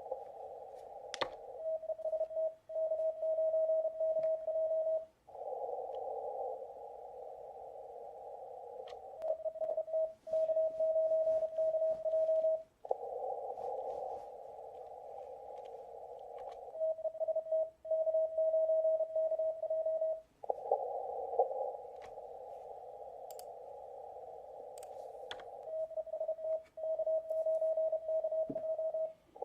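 Morse code (CW) from an amateur radio station: a steady tone keyed in dots and dashes, sent four times in runs of about three and a half seconds. Between the sends comes the hiss of the receiver's narrow CW filter, which cuts out each time the tone is keyed. This is the station transmitting, then listening.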